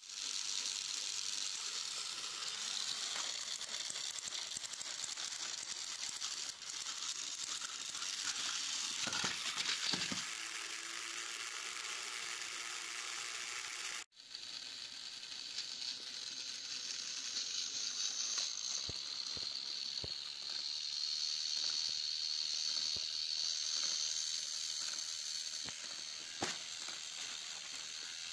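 Battery-powered Plarail toy train engines whirring: small electric motors and plastic gearboxes running steadily, with a few clicks. The sound breaks off briefly about halfway, then resumes with a higher whine.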